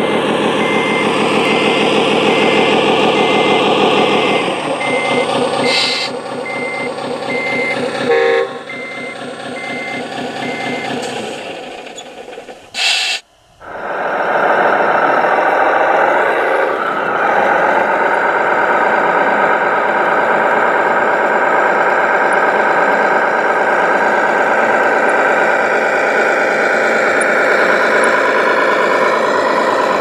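Scale RC Caterpillar 777D dump truck's engine sound running with a steady, evenly repeating reversing beep for about the first ten seconds, with a short hiss like an air brake partway through. After a brief drop and another short hiss, a model truck's engine sound drones steadily.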